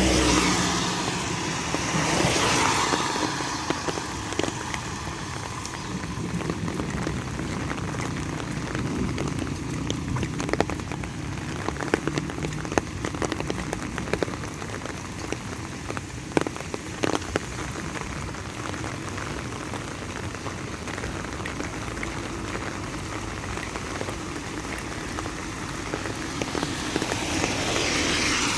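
Steady rain falling, with many sharp drop ticks scattered through it. A louder rushing swell rises and fades at the start and again near the end.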